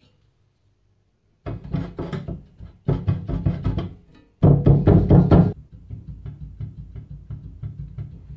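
Music with a quick, knocking percussive beat over a steady bass. It comes in about a second and a half in as three loud phrases with short breaks, then carries on more quietly and cuts off suddenly.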